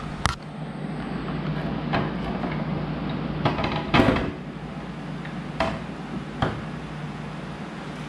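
Plastic motorcycle windscreen and its mounting hardware being handled and set against the fairing: several short knocks and clicks, the loudest about four seconds in, over a steady low hum.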